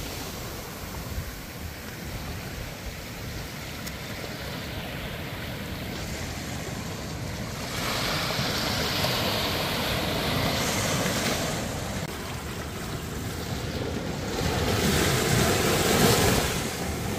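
Ocean surf washing onto a rocky shore, with wind on the microphone. The surf swells about eight seconds in and again, louder, near the end.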